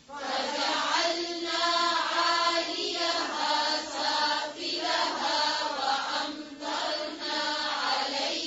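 A group of voices reciting Quranic Arabic together in a chanted tajweed style, repeating the verse in unison after the teacher. They are quieter than the single voice before and after.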